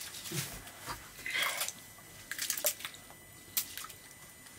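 Rice being washed by hand in a small metal saucepan of water: a hand squeezing and stirring the grains, with short irregular splashes.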